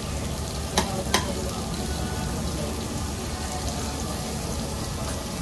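Meat sizzling on a tabletop Korean BBQ grill pan, a steady frying hiss, with two sharp clicks about a second in.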